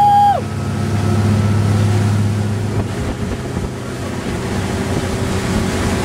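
Sea Ray 205 Sport's inboard engine running steadily at towing speed, a low drone under rushing wind and water spray. A loud, held high-pitched note sounds at the very start and cuts off about half a second in; after about three seconds the drone fades under the wind and water noise.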